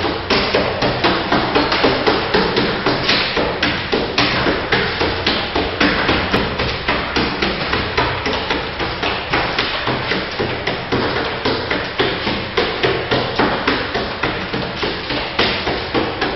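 Rapid, evenly spaced thumping knocks, about three a second, from a group exercising in a gym hall.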